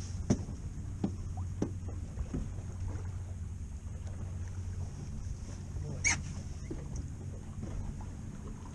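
Steady low rumble aboard a small fishing boat at sea, with a few light clicks and knocks in the first two or three seconds and one short, sharper sound about six seconds in.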